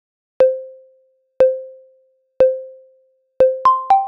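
Workout interval timer counting down the last seconds of a rest period: four short ringing tones a second apart, all at one pitch, then two quicker, higher tones near the end that begin the start-of-exercise chime.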